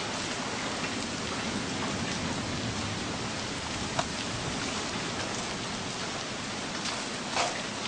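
Steady hiss of rain and wind in a thunderstorm, with a few sharp taps, one about four seconds in and one near the end.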